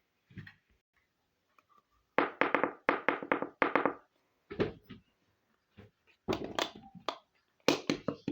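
Small hard toy pieces of a miniature kitchen set clicking and knocking as they are handled, a quick run of about six taps about two seconds in, then more clusters of clacks toward the end.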